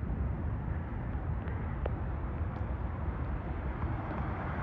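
Heavy rain falling in a steady hiss, with a few faint ticks of drops striking close by.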